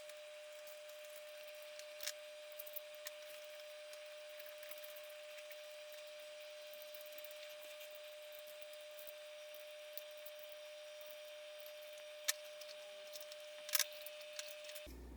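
A few light clicks and taps of bolts, nuts and plastic parts being handled during assembly of a 3D-printed test cell: one about two seconds in, the rest near the end. Under them runs a faint steady hum with hiss, which cuts off just before the end.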